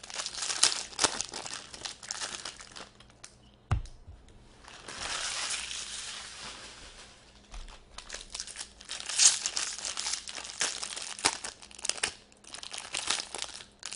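Trading card pack wrappers crinkling and tearing as packs are ripped open and handled in the hands, in irregular bursts, with one sharp knock about four seconds in.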